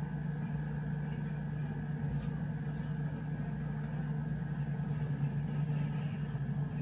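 Steady low background hum, with one faint click about two seconds in.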